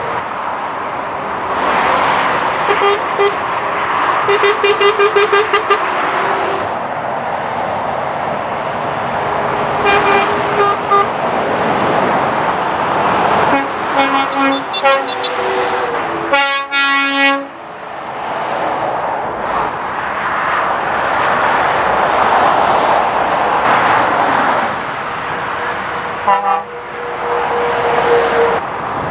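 Lorries and cars passing at speed, with the steady hiss of tyres rising and falling as each goes by. Vehicle horns toot several times over the traffic: a quick run of short toots about four seconds in and a loud blast about seventeen seconds in.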